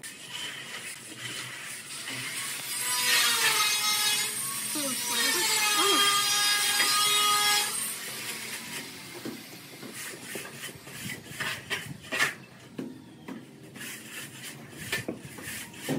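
Aluminium straightedge scraped across a wet sand-cement mortar bed, a loud rasping scrape with a faint ringing pitch for about five seconds, then quieter intermittent scrapes and taps.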